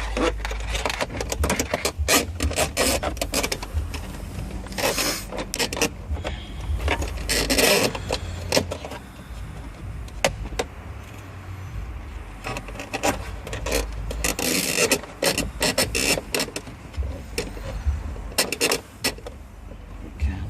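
Irregular clicks, scrapes and rubbing of hands and a claw pickup tool working wiring through a hole in a car's plastic dashboard trim, over a low rumble.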